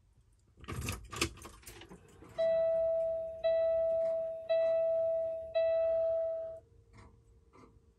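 Kenworth W900 dashboard warning chime sounding at key-on, before the engine is started: four ringing dings in a row, each about a second long and fading away. A short rattle of the keys comes just before, and a faint steady tone starts with the chimes and keeps going.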